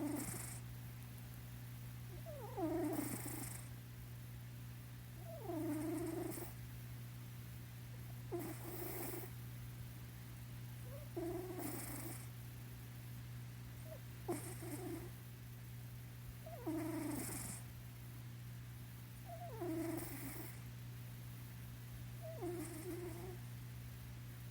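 Sleeping domestic cat snore-purring: a soft, rough purr-snore on each breath, repeating about every three seconds.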